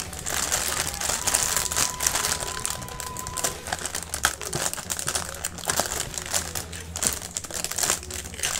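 Clear plastic packaging bags crinkling and rustling continuously as hands pull and handle them, with many small sharp crackles.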